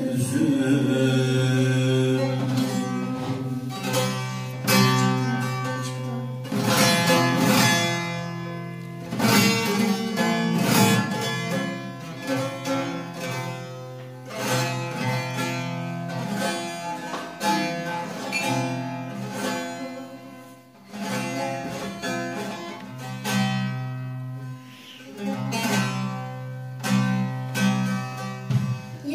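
Bağlama (Turkish long-necked saz) playing an instrumental passage of quickly plucked and strummed notes over a steady low note.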